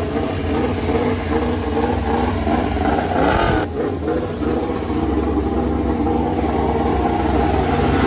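Yamaha YZR-M1 MotoGP bike's inline-four engine running at a steady idle just after being started, with a short rev of the throttle about three seconds in.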